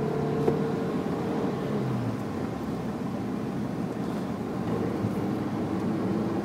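Car engine and road noise heard inside the cabin of a moving car, a steady drone whose engine note drops about two seconds in.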